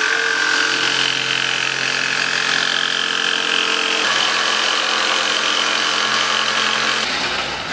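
Bosch jigsaw running steadily as its blade cuts through corrugated cardboard, a constant motor whine that stops about seven seconds in.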